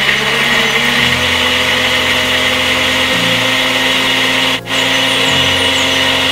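Countertop blender running steadily, blending a fruit smoothie of frozen blackberries, pear, kiwi and water. The motor sound dips for an instant about four and a half seconds in.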